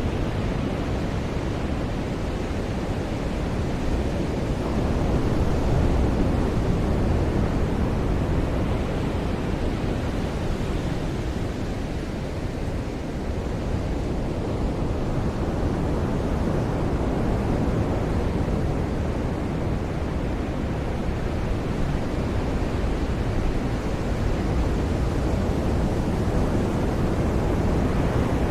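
Ocean surf rolling onto a beach: a steady deep wash of noise that swells and ebbs slowly, loudest about five to eight seconds in.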